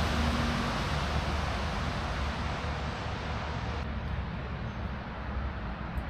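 Road traffic noise: a steady rush of tyres and engine from a passing car that slowly fades.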